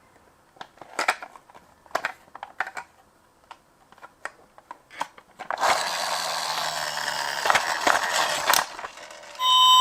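Plastic clicks and knocks of a miniature toy vehicle being handled, then about three seconds of its gear motor whirring with a loud rasp that cuts off suddenly. Near the end the toy's electronic siren starts, a two-tone hi-lo wail.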